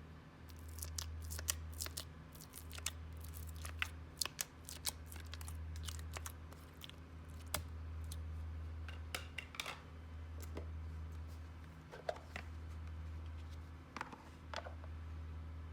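Slime being mixed and kneaded by hand, giving many irregular sticky clicks, pops and crackles, over a low hum that swells and fades every couple of seconds.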